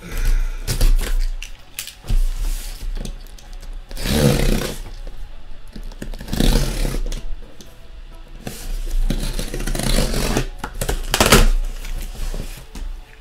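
A cardboard case of card boxes being cut and torn open, in several bursts of scraping and tearing, over background music.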